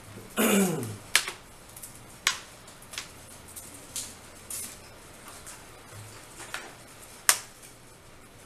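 Plastic back casing of a Nextbook 10.1 tablet being pressed on, snapping into place with sharp separate clicks at irregular intervals, the loudest near the end. A short sound falling in pitch comes about half a second in.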